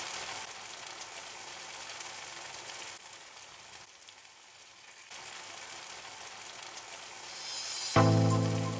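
Chicken pieces deep-frying in hot oil, a steady sizzle that dips a little in the middle. Background music comes in near the end.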